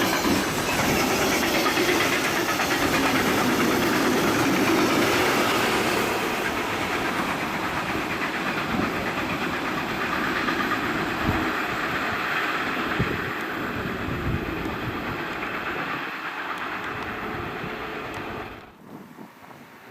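Freight train wagons rolling past on the rails, wheels clattering rhythmically over the track, the noise slowly fading as the train draws away, then cutting off suddenly near the end.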